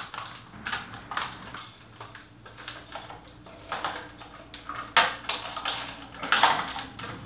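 Plastic toy grabber with robot-hand jaws being worked: a string of irregular sharp plastic clicks and clacks as its trigger is squeezed and the hands snap open and shut.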